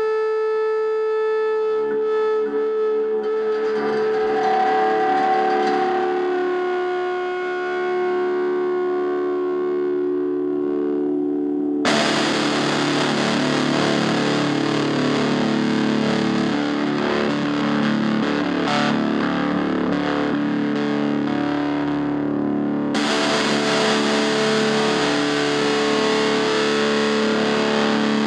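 Music with distorted, effects-laden guitar: held, sustained notes for about the first twelve seconds, then a fuller, denser part comes in suddenly.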